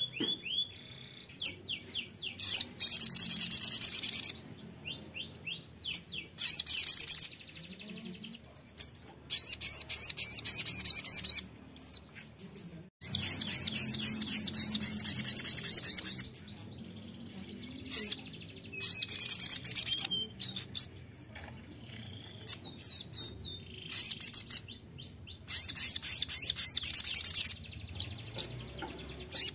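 Kolibri sogon sunbird song used as a lure recording: repeated bursts of fast, high trilling, each a second or two long, with a few lower, falling slurred notes in the gaps.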